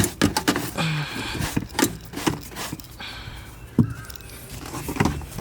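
Rustling and a clatter of short clicks and knocks from work inside a car's stripped interior, with two sharper knocks near the end.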